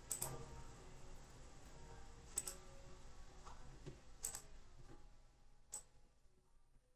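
Computer mouse clicking: four faint, sharp clicks spaced a second or two apart over a low hiss.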